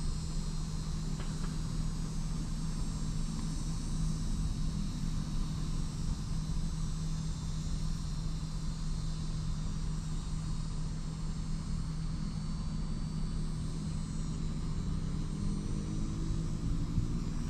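Steady outdoor ambience: a low rumble with a constant hum, and insects trilling faintly and steadily high above it.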